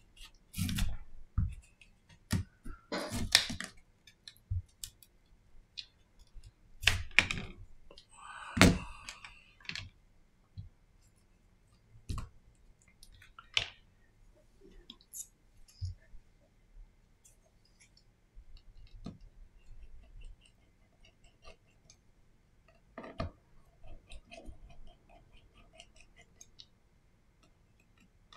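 Scattered clicks, taps and knocks of small repair tools such as tweezers and a pry tool against a Samsung Galaxy A40's casing and parts as the phone is opened on a silicone repair mat. The louder knocks bunch up in the first ten seconds, with another about 23 seconds in and lighter ticks in between.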